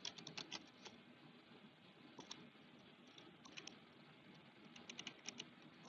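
Faint computer keyboard typing: scattered key clicks in short bursts.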